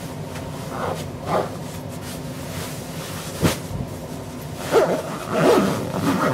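A dog whining in short bouts, loudest near the end, over the rustle of a fleece cover being pulled onto a dog bed, with a steady low hum underneath. There is one sharp click a little after halfway.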